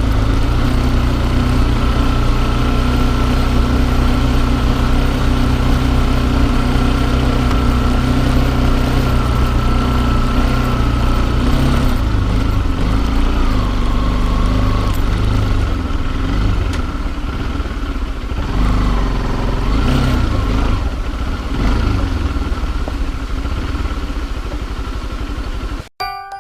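Small motorcycle engine running under way, picked up by a bike-mounted camera: a steady note for the first half, then rising and falling with changes of speed. The sound cuts off abruptly at the very end.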